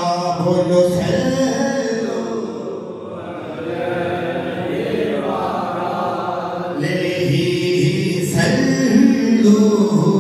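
A male naat reciter singing a naat into a microphone, holding long, wavering notes.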